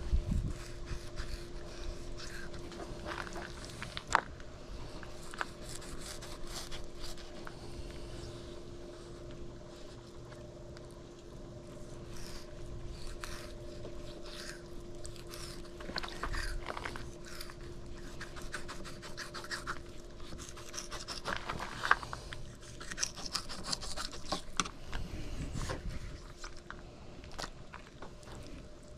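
Scattered scraping, scratching and clicking handling sounds over a steady low hum.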